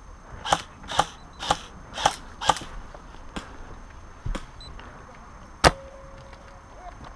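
Footsteps crunching on dry, stony ground: five even steps about two a second, then a single sharp click a few seconds later.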